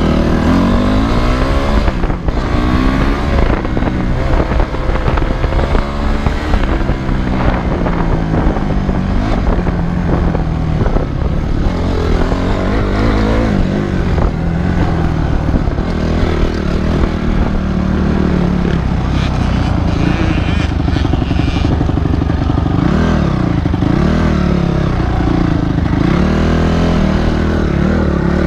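Dirt bike engine running under way, heard close up from the bike itself, its revs rising and falling again and again as the rider works the throttle along the trail.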